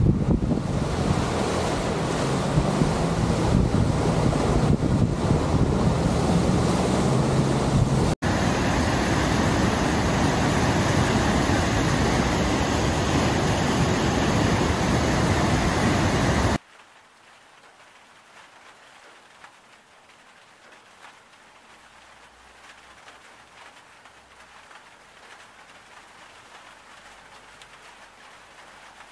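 Wind buffeting the microphone, then after a sudden cut the loud, steady rush of floodwater pouring over a river weir. This stops abruptly a little past halfway and gives way to a much quieter, faint even hiss.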